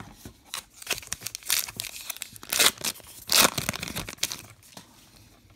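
A 2019 Topps Star Wars trading card pack's wrapper being torn open by hand: a run of ripping and crinkling, loudest in three tears near the middle, then quieter rustling as the wrapper is pulled away.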